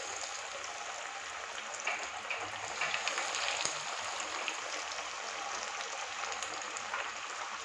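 Breadcrumb-coated spinach (palak) cutlets deep-frying in hot oil in a kadai: a steady sizzle with scattered crackles and pops.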